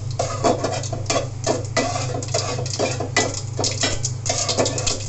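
Whole spices (cumin, panch phoron and dried red chillies) crackling and popping in hot soybean oil, tempering for dal, with a metal spatula stirring and scraping in the metal pot. The pops come irregularly, several a second.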